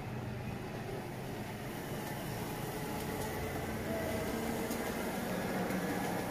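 Steady outdoor background rumble of distant road traffic, with no single nearby event standing out.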